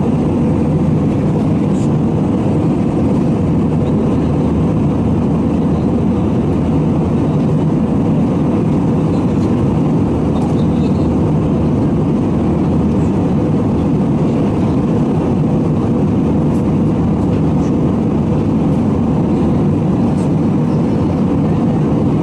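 Steady cabin noise of a jet airliner in cruise: an even, unchanging drone of engines and airflow, heaviest in the low and middle range.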